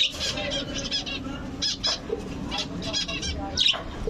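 Birds chirping: several short, high-pitched warbling calls, one after another.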